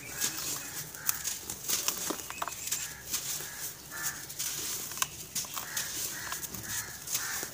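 Hands crushing and crumbling dry, gritty grey lumps: a crisp crunching made of many small crackles, with grains trickling down. Short animal calls recur in the background about once a second.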